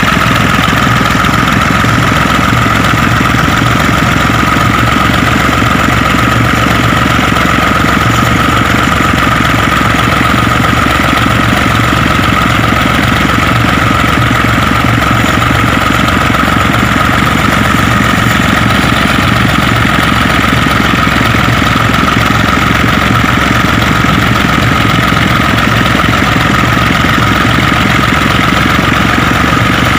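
Tractor diesel engine running steadily under load while it pulls a rotavator through orchard soil, with a steady high whine over the engine.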